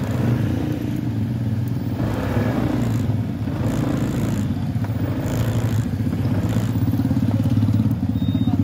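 Motorcycle engine running at low speed while the bike rolls over loose gravel, with faint crackles from the stones under the tyres.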